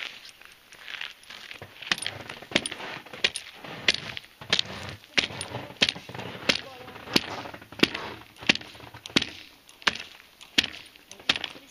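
The metal spike of an ice-testing pole striking lake ice again and again, chipping a hole through it to check the ice thickness. There are sharp, hard knocks at about one and a half a second, starting about two seconds in.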